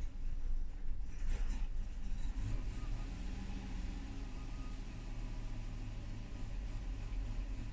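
Lexus LX470's 4.7-litre V8 idling with a steady low rumble, the rough idle that leads to stalling.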